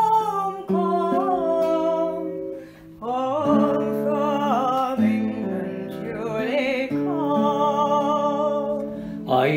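Instrumental break in a traditional folk ballad: acoustic guitar accompaniment with a held, wavering melody line over it.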